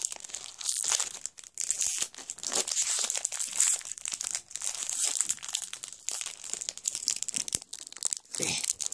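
Foil wrapper of a Pokémon trading-card booster pack crinkling and crackling continuously as it is handled and pulled at to get it open.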